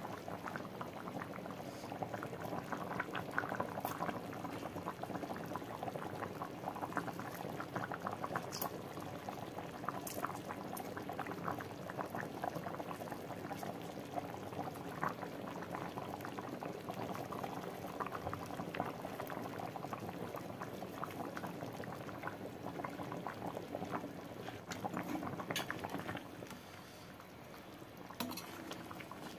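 Thick chicken gravy boiling hard in a steel kadhai: a steady bubbling with many small pops.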